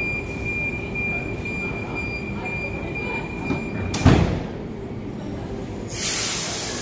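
NSW TrainLink H set (OSCAR) door-closing warning: a steady high-pitched tone sounds for about four seconds, then the sliding doors shut with a loud thud. About two seconds later a hiss starts and runs on, over the constant low rumble of the standing train.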